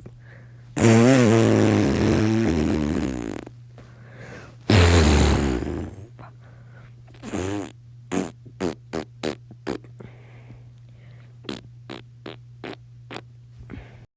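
Fart noises: two long, buzzy, wavering ones, then strings of short, quick spurts.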